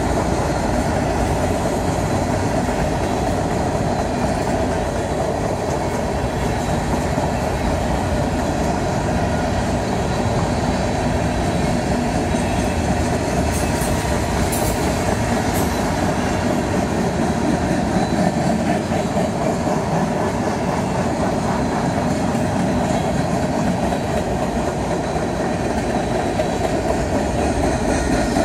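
Freight cars of a long mixed freight train, covered hoppers and tank cars, rolling steadily past on the main line: a continuous noise of steel wheels running on the rails.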